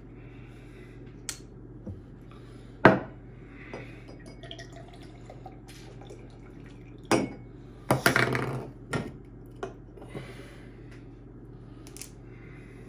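Clicks and knocks from a miniature liquor bottle's screw cap being twisted off and small bottles and a glass handled on a wooden table, the sharpest knock about three seconds in. About eight seconds in, a brief splashing pour of the liquor into a tall glass.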